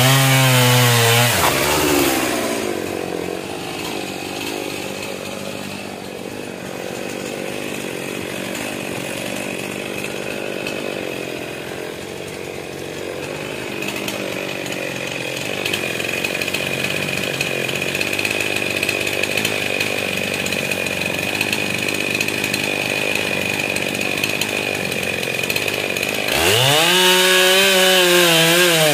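Stihl MS 441 C two-stroke chainsaw revving with its pitch swinging up and down, then running lower and steadier for about twenty-four seconds, then revving up sharply again near the end.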